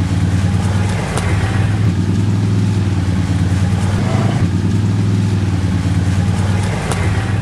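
An off-road vehicle's engine runs steadily with a low, even hum, and a couple of sharp clicks are heard, about a second in and near the end.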